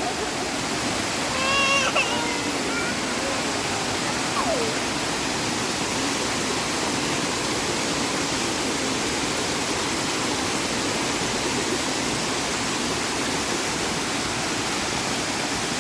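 Steady rushing of a tall waterfall, an even wash of falling water. A brief high call rises over it about two seconds in.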